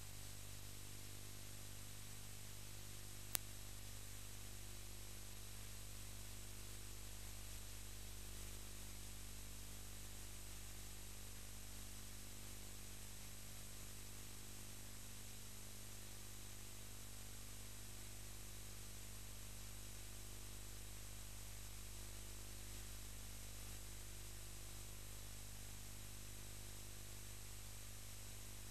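Faint steady electrical hum with hiss, and no other sound apart from a single sharp click about three and a half seconds in.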